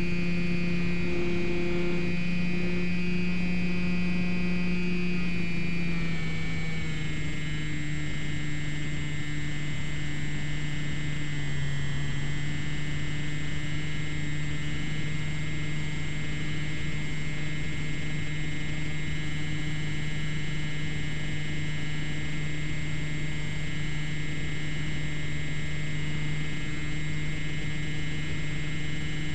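Slow Stick model airplane's electric motor and propeller humming steadily in flight over a constant hiss. About six seconds in the pitch drops a little as the throttle eases back, and it dips briefly again around twelve seconds.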